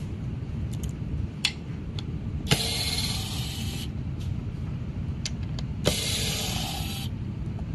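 Small electric screwdriver whirring in two bursts of a little over a second each, driving out small screws, with a few sharp clicks of metal parts in between.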